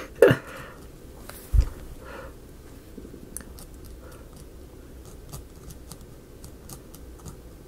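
A short sound at the very start and a single low thump about one and a half seconds in, then faint, scattered clicks of a paint pen's nib dabbing and scratching on the edge of a thin wooden piece.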